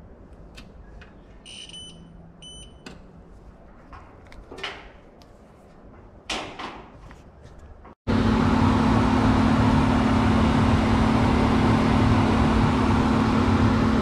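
A few light clicks and two short electronic beeps. About eight seconds in, after a cut, the Trane XR80 gas furnace's blower is running on its new control board: a loud, steady rush of air over a constant low hum.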